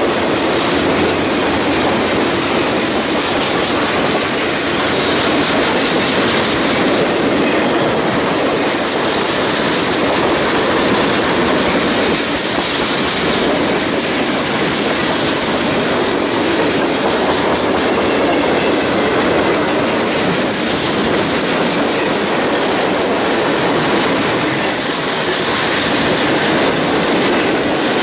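Freight train's boxcars and refrigerator cars rolling past close by: steel wheels running on the rails in a steady, loud noise, with a high hiss that swells now and then.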